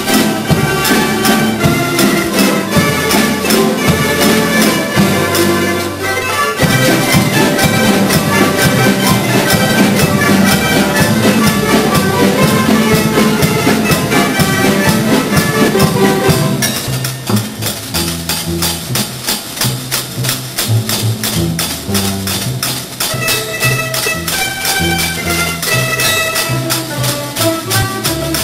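A rondalla, a Filipino ensemble of bandurrias and other plectrum string instruments, playing a tune in rapid picked notes. About two-thirds of the way through the music drops to a softer passage in which the bass notes stand out more.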